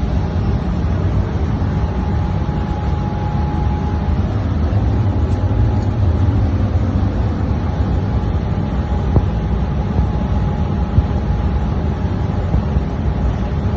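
Steady low mechanical rumble of running refrigeration machinery, with a faint thin whine that comes and goes and a few light clicks.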